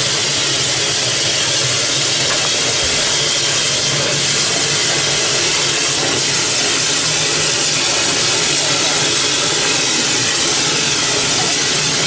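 Steam locomotive standing with a steady hiss of escaping steam and a low, even hum underneath.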